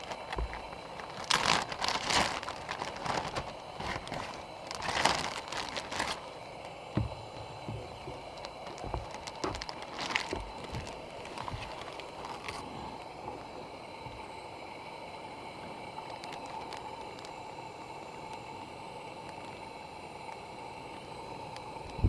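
Irregular rustling and crinkling handling sounds with small clicks as snap peas are laid out on a serving tray of food, stopping after about twelve seconds. A steady, even outdoor background hiss follows.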